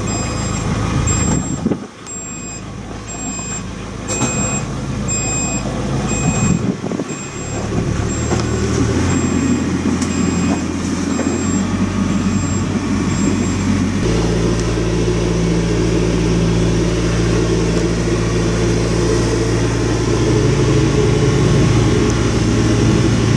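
Sailboat's inboard engine running in reverse to back the grounded boat off a sandbank; its note changes about a third of the way in and again just past the middle. A high electronic beep repeats about once a second through the first half.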